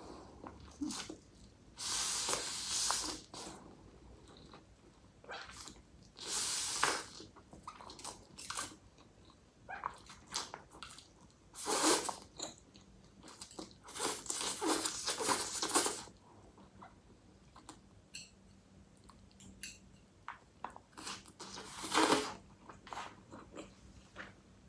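A person slurping and chewing instant noodles: a series of short slurps a few seconds apart, with quieter chewing between them.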